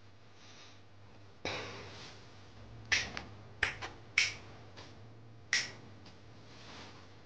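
Finger snapping: a string of short, sharp snaps at uneven intervals, several close together about three to four seconds in.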